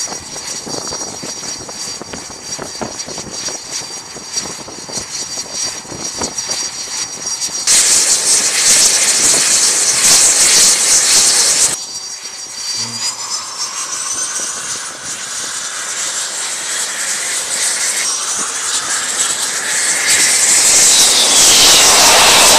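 T-45 Goshawk's single turbofan jet engine whining on the catapult, then spooling up with a rising whine and growing steadily louder toward full power for launch. A loud hissing rush of engine and deck noise comes for a few seconds near the middle.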